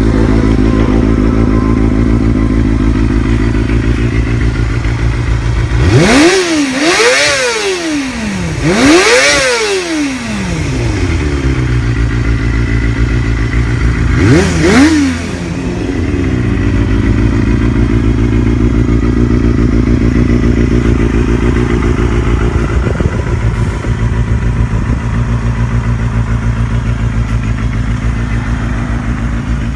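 1997 Kawasaki ZXR250's 250cc inline-four engine idling steadily, revved in three quick blips in the first half, the pitch rising sharply and dropping back each time before it settles into a steady idle.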